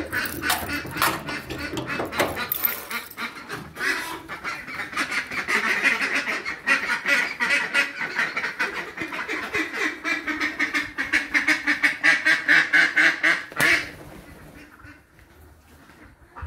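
A flock of Khaki Campbell ducks quacking at once, a dense run of rapid overlapping quacks that cuts off suddenly near the end.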